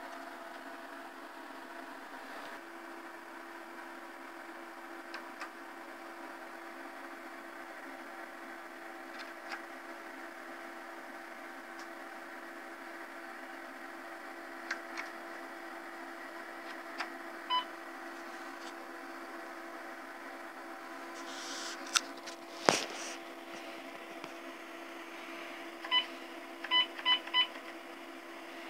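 Steady hum and whir of an old 1990 Vendex Headstart III PC (cooling fan and hard drive), with a few soft keyboard clicks. About three quarters through there is one loud clack, and near the end the PC speaker gives four short high beeps.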